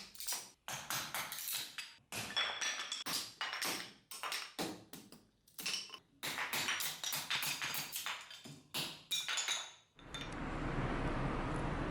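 Quick run of sharp strikes from the steel head of a restored Soviet multi-tool axe, several a second, each with a brief metallic ring. About ten seconds in the strikes give way to a steady hiss.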